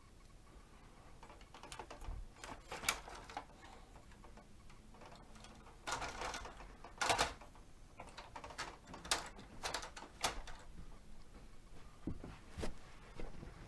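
Scattered hard plastic clicks, knocks and rattles from a Bruder MAN toy fire engine's turntable ladder being raised and extended by hand. The loudest clicks come around the middle.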